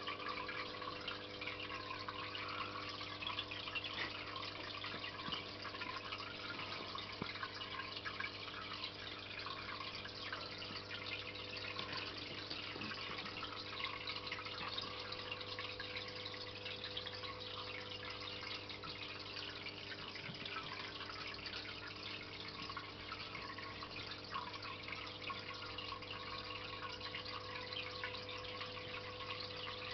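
Aquarium filter running: a continuous trickling, dripping splash of water over a steady low hum.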